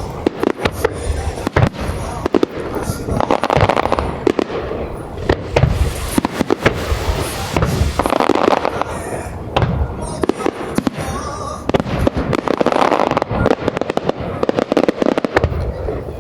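Fireworks display: aerial shells bursting one after another, with many sharp bangs and crackles and a rolling low rumble throughout.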